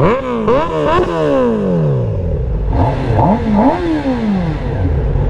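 Kawasaki Z900's inline-four engine revved hard while standing, really loud: about five quick throttle blips, each rising sharply in pitch and then falling slowly back toward idle.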